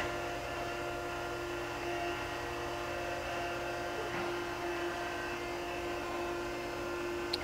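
Okamoto ACCUGAR-124N hydraulic surface grinder running, its hydraulic pump and grinding-wheel spindle giving a steady hum with several fixed tones while the table traverses.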